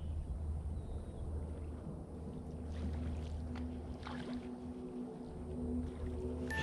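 Open-water ambience: a steady low rumble of wind and water around the kayak. A few faint clicks come near the middle, and a low steady hum comes in about halfway.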